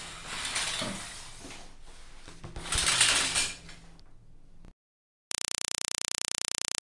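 Stage-curtain opening sound effect: two swelling swishes of sliding fabric, the second louder. After a brief dead gap comes about two seconds of a harsh, even electronic buzz that cuts off suddenly.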